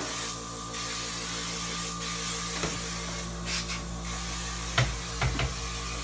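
Insecticide fogger running steadily: a motor hum under the hiss of the mist being blown out. Two or three short knocks come about five seconds in.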